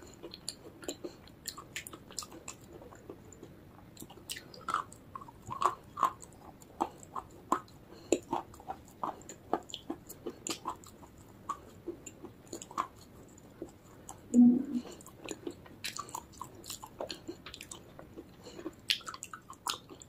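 Close-miked mouth sounds of baked clay (Punjab ki mitti) being chewed: irregular crisp crunches and small clicks, with one louder, lower sound about two-thirds of the way through.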